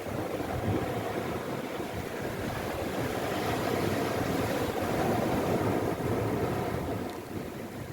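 Sea waves washing in, a continuous rush that swells to a peak in the middle and eases off near the end.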